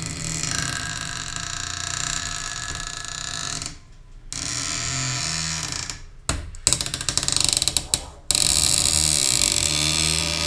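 Wooden door creaking and squealing on rusty metal hinges as it is swung back and forth. The long squealing creaks break off briefly about four seconds in, turn jerky and stuttering in the middle, and end in a long, loud creak.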